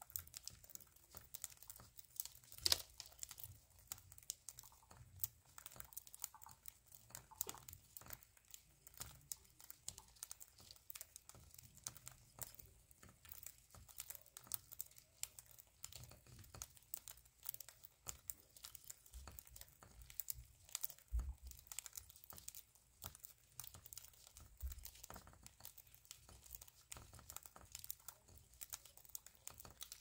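Budgerigars cracking and husking seed with their beaks at a seed dish: a quiet, rapid, irregular crackle of small clicks, with one sharper click about three seconds in.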